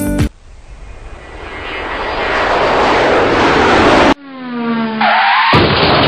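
Engine sound effects in two spliced pieces. First a rushing engine noise swells steadily louder for about four seconds. Then, after an abrupt cut, a pitched engine tone falls in pitch, and a rising engine note joins it near the end.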